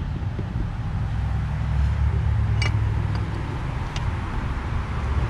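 Steady low background rumble with a few light metallic clicks, about two and a half and four seconds in, as the clutch release fork is handled inside a manual transmission's bellhousing.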